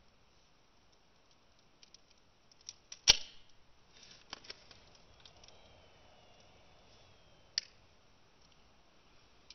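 Small clicks and snaps of a camera pen's thin metal casing and circuit board being bent and pulled apart by hand. There is one sharp snap about three seconds in and another sharp click later on.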